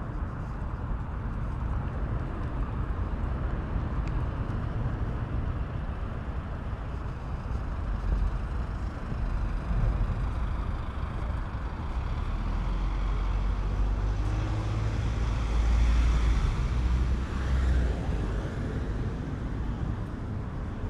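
Road traffic noise on a city street, with one vehicle passing loudest about two-thirds of the way in, swelling and fading. Wind rumbles unevenly on the microphone throughout.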